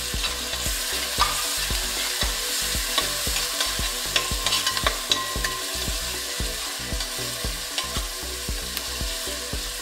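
Crushed ginger, onion, garlic, chillies and curry leaves sizzling in hot coconut oil in a wide metal pan, stirred with a spatula that scrapes and clicks against the pan in quick irregular strokes.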